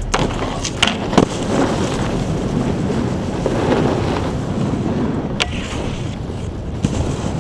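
Snowboard sliding and scraping over packed snow and onto park rails and a box, with a few sharp knocks of the board striking the features, and wind buffeting the microphone.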